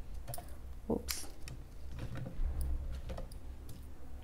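Scattered light clicks and crackles of crisp fried puri shells being picked up and stuffed by hand with spiced mashed-potato filling.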